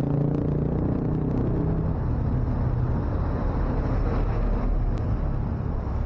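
Motorcycle riding at low speed: a steady low engine and road rumble with wind on the handlebar-mounted microphone.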